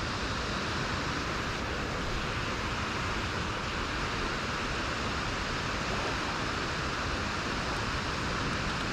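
Steady rushing of water, an even hiss that holds at one level throughout.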